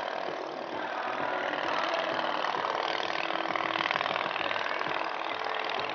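Self-made radial engine of a large-scale RC Blériot XI model running steadily in flight, with a rapid, even firing beat. It swells a little louder about midway, then eases.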